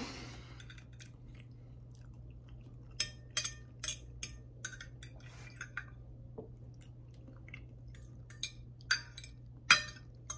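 Metal fork clinking and scraping against a glass plate in scattered sharp taps, the loudest one near the end, over a steady low hum.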